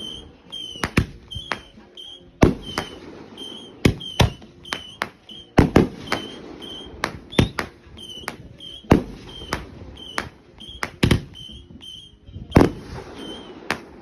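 Fireworks going off: an irregular string of sharp bangs, several of them loud, with crackling in between.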